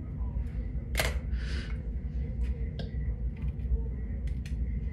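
Small hair scissors snipping wig lace: one sharp snip about a second in, then a brief rustle and several lighter clicks as the scissors and hair tools are handled, over a steady low hum.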